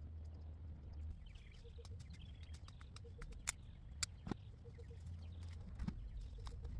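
Sharp clicks and snaps from tree-trimming work: scattered faint ones, with three loud ones about halfway through. A low steady hum lies under them.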